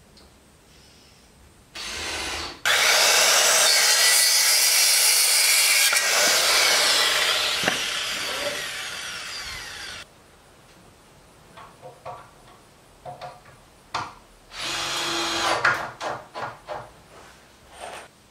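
A power saw cutting wood with a loud, steady rasping noise for about seven seconds, then cutting off; after it come scattered knocks and a few short bursts of tool work.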